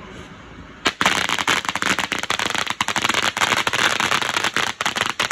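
A string of firecrackers going off: a dense, rapid run of sharp pops that starts suddenly about a second in and keeps going.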